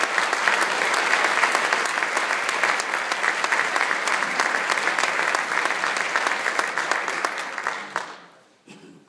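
Audience applauding, loud and steady, dying away about eight seconds in.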